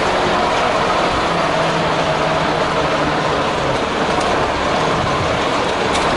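Vintage Dennis fire engine's engine running steadily.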